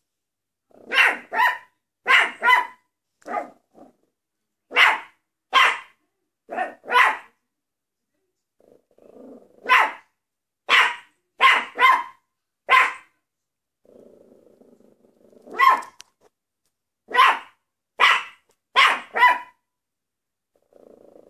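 Maltese dog barking in short, sharp yaps, mostly in quick pairs or threes with short pauses between. Twice a quieter, low growl runs for a second or so before the barking starts again.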